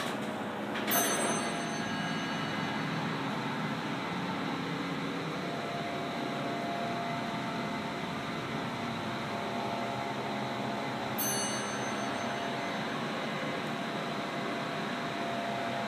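Westinghouse elevator car travelling: a steady running hum, with a sharp click about a second in and another about eleven seconds in, and a steady whine setting in about five seconds in.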